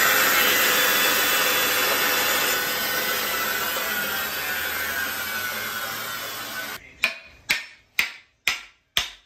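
Bandsaw running after cutting through a wooden axe handle, its level and pitch sinking slowly as it winds down. About seven seconds in it gives way to six quick rasping strokes on wood, about two a second.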